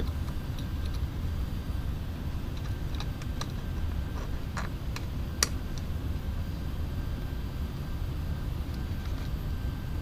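Steady low background rumble with a few faint light clicks of a tiny M2 nut and screw being worked by hand against a metal limit-switch bracket. The sharpest click comes about five and a half seconds in.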